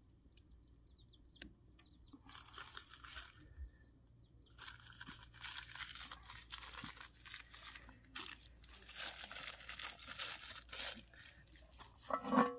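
Crinkling and tearing of a thin wrapper worked in the hands, in two long spells. Near the end a metal pan clanks once with a short ring.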